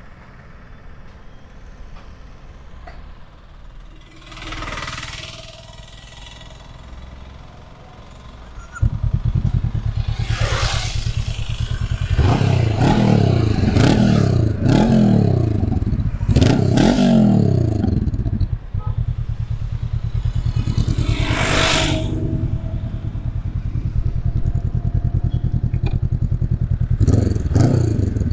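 Honda CB500X's 471 cc parallel-twin engine through its stock exhaust: it catches about a third of the way in and idles steadily, with the throttle blipped into several quick revs in the middle and again near the end.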